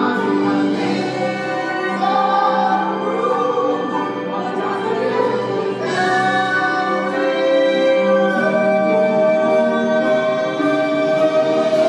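A man and a woman singing a musical-theatre duet with orchestra, in long sustained notes; about two-thirds of the way through a high note is held to the end.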